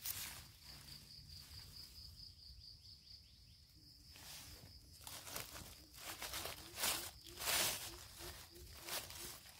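Dry leaf litter rustling and crackling as dead leaves are pushed aside with a knife blade and fingers, loudest in two bursts around seven seconds in. Behind it an insect keeps up a fast, steady chirping.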